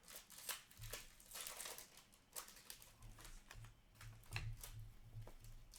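Hockey trading cards being handled and flipped through by hand: a run of faint light clicks and slides as cards are moved off the stack.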